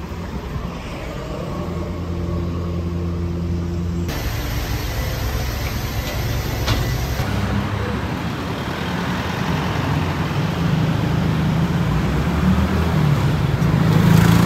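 Road traffic: a steady engine hum at first, then cars and motorbikes driving through a junction. Near the end a tuk-tuk's engine passes close and grows louder.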